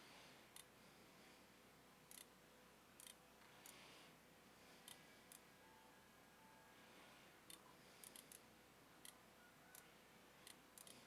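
Faint, irregular computer mouse clicks, about fifteen single and double clicks spread out over quiet room tone.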